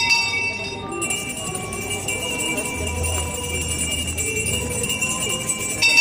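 Bells ringing and jingling continuously, starting sharply and sounding another loud accent near the end.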